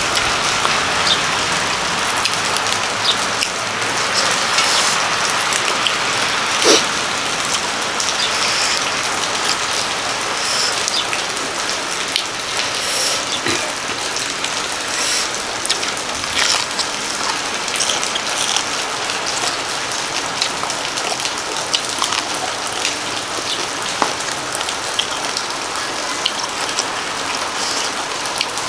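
Steady rain falling, an even hiss with occasional sharp taps.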